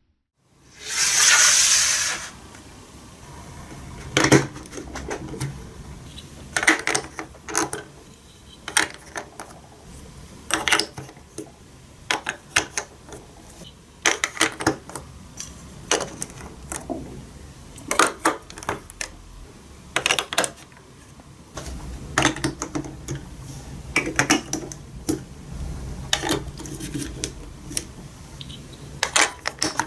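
Large plastic building blocks and marble-run pieces being pressed onto a plastic baseplate and onto each other, giving irregular sharp clicks and knocks. A brief loud rushing noise comes about a second in.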